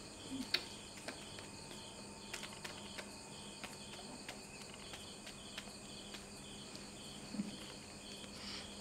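Faint insect chirping, likely crickets, as a steady, evenly pulsed high trill, over a low steady hum with a few faint clicks.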